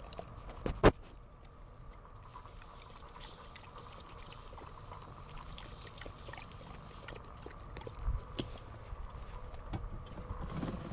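Water spraying from a garden hose nozzle while a golden retriever laps and gulps at the stream, with small wet ticks throughout. A sharp knock about a second in is the loudest sound.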